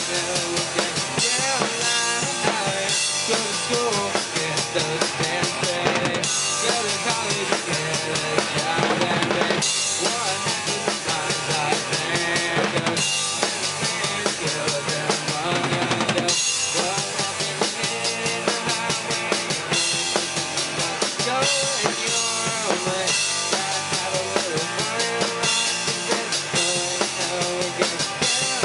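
A rock band playing a song live: a close drum kit, the loudest part, with kick, snare and cymbals, under electric guitars.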